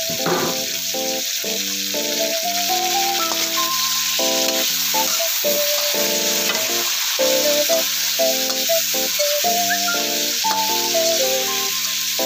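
Food frying in a pan with a steady sizzle, under background music with a simple melody and chords.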